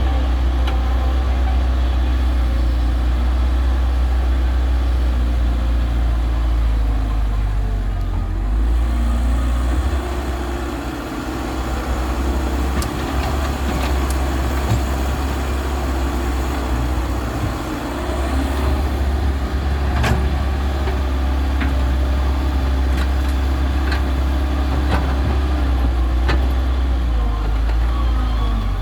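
Diesel engines of an excavator and a tractor running steadily while mud is loaded, the engine note easing briefly twice. A single sharp knock about two-thirds of the way through.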